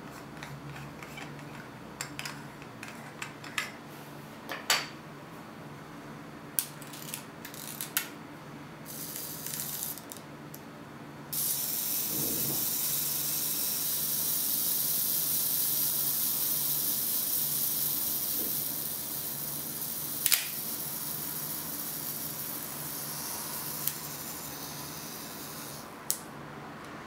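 Small mechanical clicks from handling a Pentax ME 35mm film camera and its lens, scattered through the first eight seconds and twice more later. A steady hiss starts suddenly about eleven seconds in, is the loudest sound, and eases off near the end.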